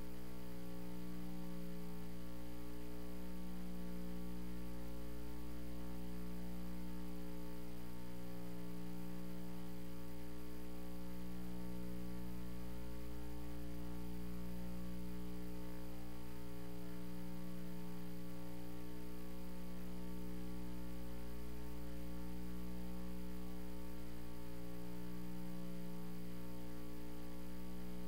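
Steady electrical mains hum on the sound feed: a stack of unbroken tones, one of them swelling and fading slowly every couple of seconds, with nothing else heard.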